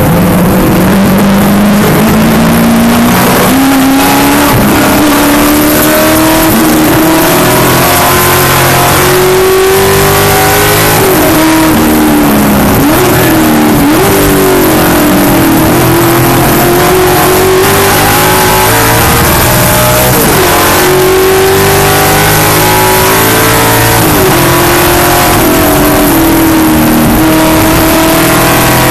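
V8 engine of an SCCA American Sedan-class Camaro race car running hard at racing speed, heard onboard and very loud. Its pitch climbs under acceleration and breaks sharply several times at gear changes, over constant wind and road noise.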